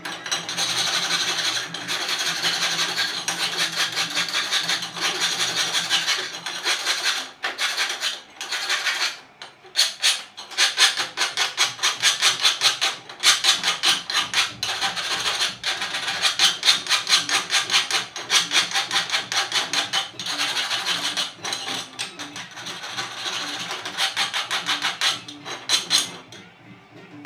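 Pulsed TIG welding arc on stainless steel pipe, a rapid, even crackling buzz that pulses many times a second. It breaks off briefly a few times and stops shortly before the end.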